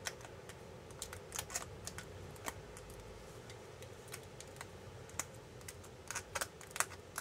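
Light, irregular clicks and taps of a pen-shaped pick tool poking small die-cut pieces out of a sheet of shiny patterned paper, with a few quick clusters of taps.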